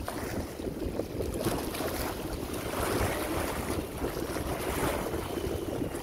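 Small sea waves lapping and washing over rocks at the water's edge, swelling in a few surges, with wind buffeting the microphone.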